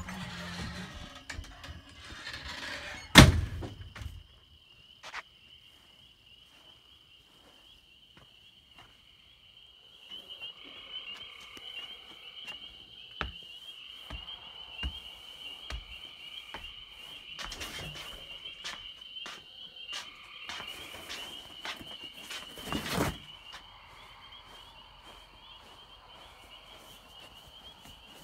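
A single loud thunk, as a door shuts about three seconds in. From about ten seconds a steady, high, warbling trill of a night chorus runs on, with a few scattered knocks.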